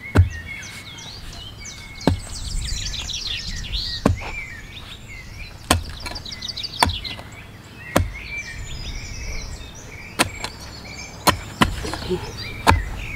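Pick mattock blade chopping into dense, hard-packed clay at the bottom of a planting hole, about ten dull strikes, roughly one every two seconds and coming quicker near the end. Songbirds chirp in the background.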